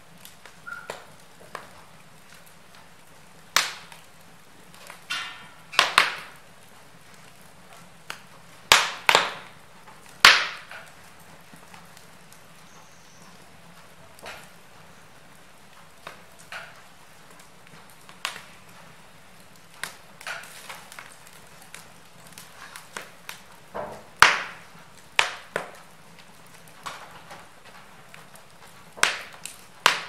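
Wood logs burning in an open fireplace, crackling and popping irregularly over a low hiss. Sharper, louder pops stand out every few seconds.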